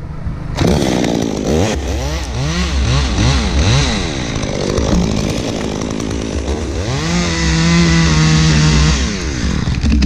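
Stihl top-handle two-stroke chainsaw starting up about half a second in and being revved up and down several times. It drops back, then is held at high revs for about two seconds before falling away near the end.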